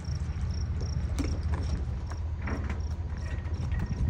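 Steady low engine idle, with a short high-pitched chirp repeating about three times a second over it and a few scattered knocks.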